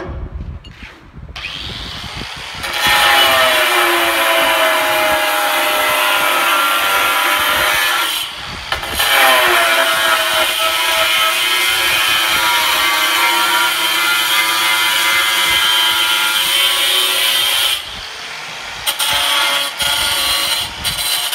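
Handheld angle grinder with a diamond blade cutting a ceramic floor tile: the motor spins up, then a loud cut with a high whine that sags in pitch as the blade bites. A brief break about eight seconds in, a second long cut, then the cut stops and the grinder runs on more quietly near the end.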